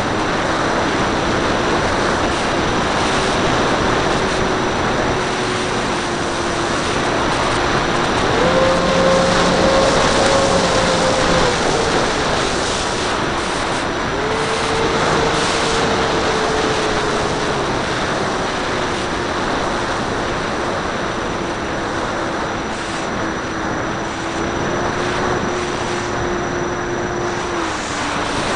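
Radio-control Banana Hobby P-38's electric motors and propellers whining in flight under heavy wind rush over the onboard camera. The pitch steps up about eight seconds in and again around fourteen seconds as the motors speed up, then settles back to a steady lower whine and dips briefly near the end.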